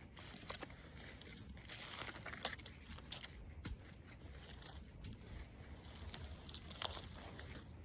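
Rustling, crinkling and crunching of storm debris being handled as a shirt is dug out of it by hand, with scattered small clicks and knocks.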